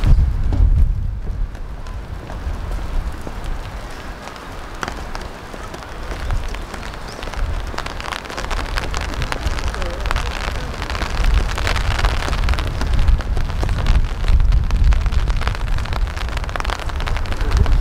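Rain pattering steadily in many small drop ticks, with a low rumble underneath, growing louder in the second half.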